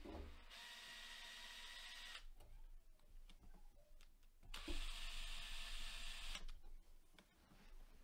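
Cordless drill driver with a Phillips bit running in two spells of about two seconds each, backing out the two screws on the back of a network video recorder's metal case; the motor's whine holds a steady pitch, and the second run is louder.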